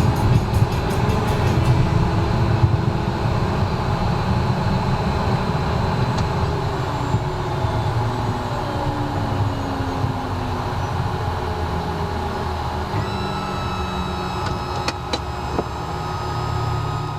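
Cessna Citation M2's twin turbofan jet engines running with a steady low rumble, a faint thin whine joining in about three quarters of the way through.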